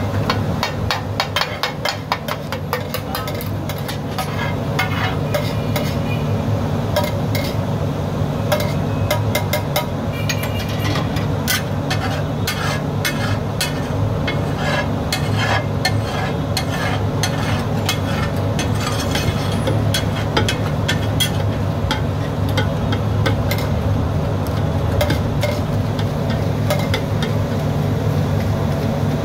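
Metal spatula clattering and scraping on a pav bhaji tawa in quick, irregular strokes while the bhaji sizzles, over a steady low hum.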